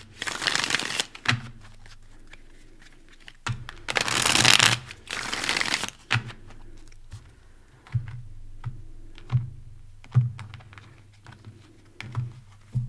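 A tarot deck being shuffled by hand in two bursts, the first for about a second and the second from about three and a half to six seconds in, followed by scattered light clicks and taps of cards being handled and laid on the table.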